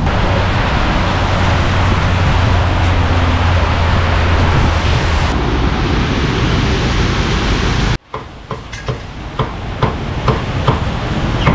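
A loud, steady rushing noise with a low hum, which cuts off about eight seconds in. Then a cleaver chops roast beef on a wooden block in quick, sharp strikes, about three a second.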